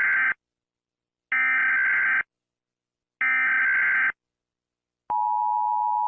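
Emergency Alert System header: three short buzzing data bursts, the first already sounding at the start, then about five seconds in the steady two-tone attention signal begins.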